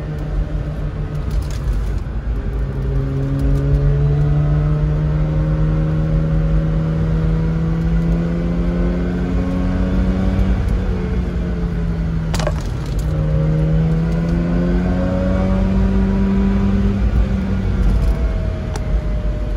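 Mazda rotary engine heard from inside the cabin while driving, its pitch climbing slowly in long pulls and falling back a few times between them. A single sharp click about twelve seconds in.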